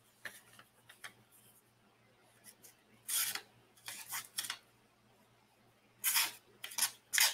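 Small folding pocketknife blade slicing through paper: a few short rasping cuts about three seconds in, then a quicker series of cuts near the end.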